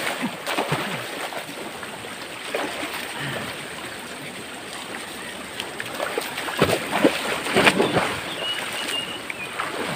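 River water flowing steadily, with a few splashes and knocks, the loudest about two-thirds of the way through.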